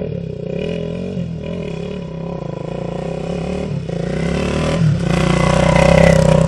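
KTM 450 EXC dirt bike's single-cylinder four-stroke engine revving hard under load, its rear wheel spinning in loose dirt. It grows louder over the last couple of seconds as the bike comes close.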